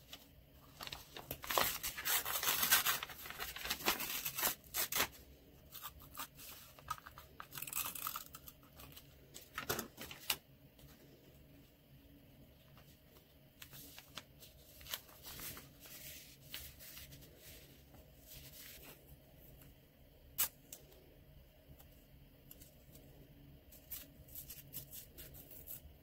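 Paper rustling and crinkling as sheets of printed paper are handled and slid into a journal's pages, loudest in the first few seconds. Near the end comes a quick crackly tearing of a strip of washi tape.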